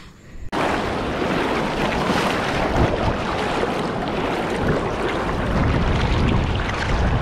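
River water rushing and splashing, with wind on the microphone. It starts suddenly about half a second in and then holds steady.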